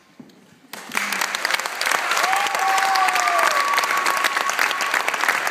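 Audience applause breaking out suddenly about a second in, after a brief hush, and continuing steadily, with a long high call held over it from about two seconds in.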